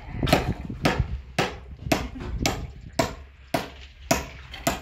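Steady hammering: nine evenly spaced blows, about two a second, each with a short ring after it.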